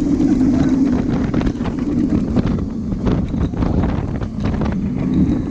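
Heavy wind rushing and buffeting over the microphone, with a low rumble, as when riding the Fenix roller coaster.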